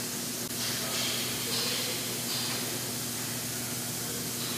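Steady hiss of background noise with a faint low hum under it, and a few short, brighter hissing sounds in the first half.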